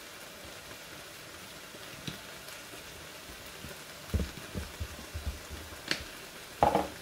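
Turkey mince and onions sizzling gently in a frying pan, a steady hiss. From about four seconds in there is a run of low knocks, and a sharp click near the end.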